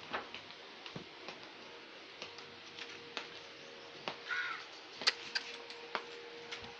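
Scattered sharp clicks and knocks over a steady hum, with one short harsh animal call about four seconds in.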